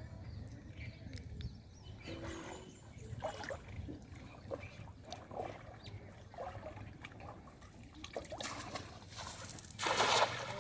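Water sloshing and trickling, with scattered small splashes and a louder rush of water from about eight and a half seconds in that cuts off just after ten seconds.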